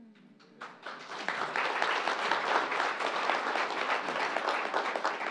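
Audience applauding: a few scattered claps, then a full round of clapping from about a second in that starts to die away near the end.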